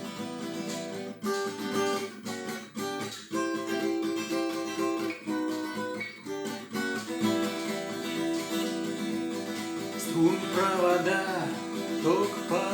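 Acoustic guitar strumming chords in a song intro; a voice begins singing near the end.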